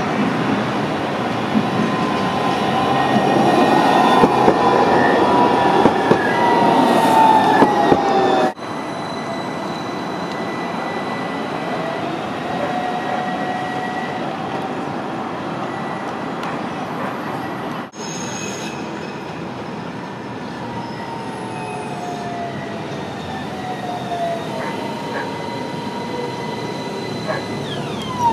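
AnsaldoBreda Sirio light-rail tram running in and slowing, its electric drive whining in tones that slide down in pitch as it decelerates, over rolling and rail noise; loudest as the first tram approaches. The sound breaks off abruptly twice, at about eight and a half and eighteen seconds, where the clips are cut.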